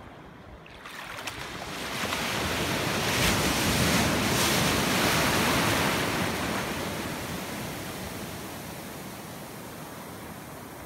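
A wave breaking and washing through the shallows. The rushing surf noise swells about a second in, is loudest in the middle, then slowly dies away.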